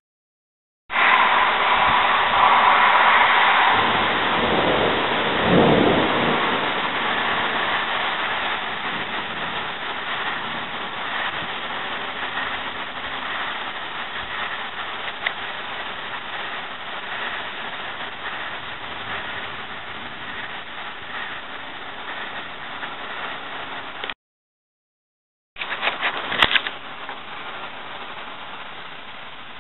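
Outdoor ambience ahead of a thunderstorm: a steady rushing noise of wind and weather, with a low rumble swelling about five seconds in. The sound cuts out abruptly twice, and a few sharp clicks follow the second cut.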